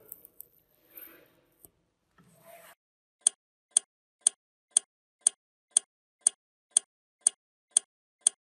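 Faint rustling as a strip of masking is peeled off painted cast iron. From about three seconds in, a sharp, ringing tick starts and repeats evenly about twice a second.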